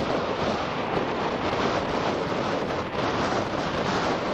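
Steady rushing jet noise from a formation of US Navy Blue Angels F/A-18 Hornets in flight, mixed with wind buffeting the microphone.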